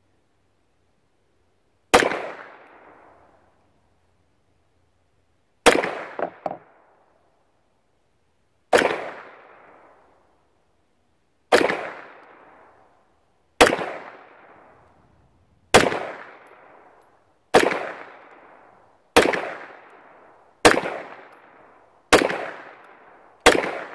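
SIG Sauer P320 Legion 9mm pistol firing eleven single shots, each sharp with a short decaying ring. They start about three seconds apart and quicken to about one and a half seconds apart near the end.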